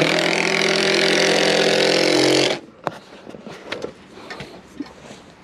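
A small engine or motor running fast and loud, then cutting off suddenly about two and a half seconds in, followed by a few light knocks.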